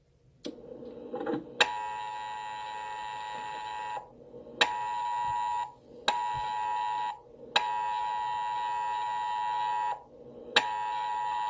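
Emergency Alert System attention signal: a steady two-tone alarm that keeps breaking off and restarting. It runs in stretches of about one to two and a half seconds with short gaps between them, and each restart begins with a click.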